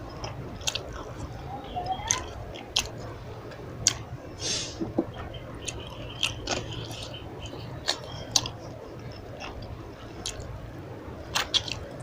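Close-up chewing and biting as a person eats chicken curry with pulao: wet, squishy mouth sounds with scattered sharp smacks and clicks, over a steady low hum.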